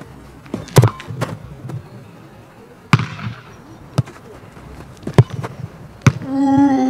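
Sharp thuds of a soft soccer ball, pumped to only 9 psi, being kicked and caught: about six knocks, the loudest about a second in and about five seconds in. A short vocal shout near the end.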